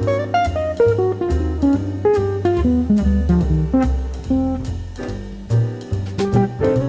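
Jazz background music: a guitar melody over a bass line that changes note about every half second.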